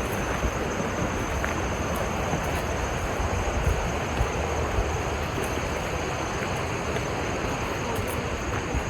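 Steady rushing hiss of water flowing down a mountain stream, with some low rumble of wind on the microphone.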